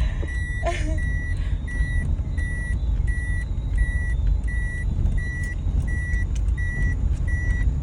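Vehicle electronic warning beeper sounding a steady high beep about one and a half times a second, over a low engine and road rumble.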